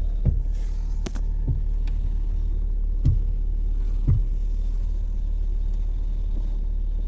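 Fiat Strada idling while the steering wheel is turned, with about half a dozen sharp clicks and knocks from the steering, most of them in the first four seconds. This cracking comes from the small universal joint on the electric power steering's shaft, which the owner puts down to a lack of lubrication.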